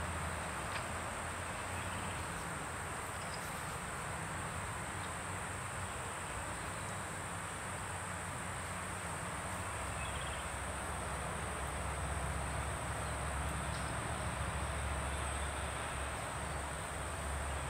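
Outdoor ambience dominated by a steady, high insect trill, over a low rumble that grows louder in the second half.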